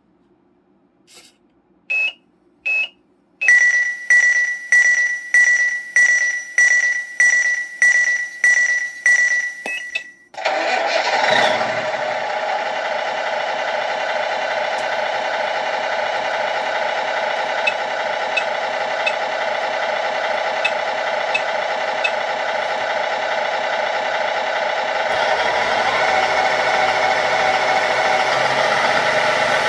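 GT Power multi-function sound unit in a Tamiya King Hauler RC truck playing a simulated truck engine start: two short beeps, a pulsing starter sequence of about eleven beats, then the engine catches about ten seconds in and idles steadily, growing louder near the end.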